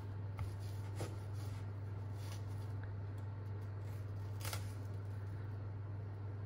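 Kitchen knife cutting into a peeled onion on a plastic chopping board: a few faint taps and crunches, the sharpest about four and a half seconds in, over a steady low hum.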